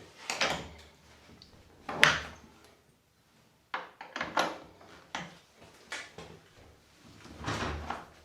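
A door being fitted back onto its hinges: a series of knocks and clunks as it is handled, the loudest about two seconds in, with a brief quiet spell just before four seconds.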